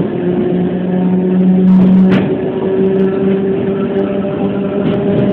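Tobu 5070 series electric train running, heard inside the car: the whine of its nose-suspended (tsurikake) traction motors and gears over the rumble of the wheels. The hum is steady and rises a little in pitch about half a second in, and a sharp click cuts through about two seconds in.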